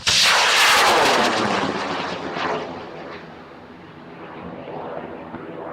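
An M1297 high-power rocket motor ignites with a sudden loud roar that falls in pitch and fades as the rocket climbs away, swelling briefly again near the end.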